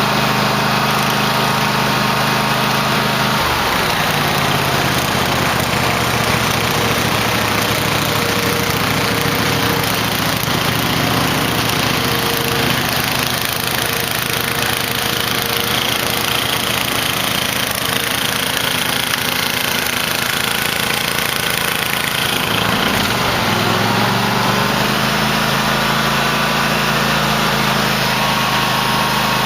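Cub Cadet LT1050 lawn tractor engine running steadily. Its note drops lower a few seconds in and picks back up to a higher pitch near the end.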